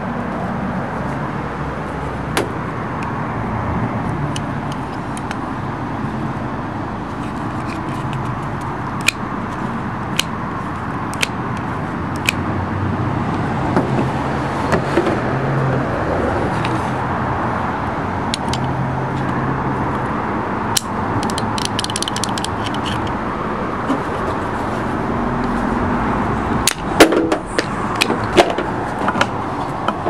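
Scattered sharp clicks and clacks of a Pontiac Fiero hood latch and release cable being handled, with a quick run of louder clicks near the end. Underneath is a steady low background rumble with a shifting hum.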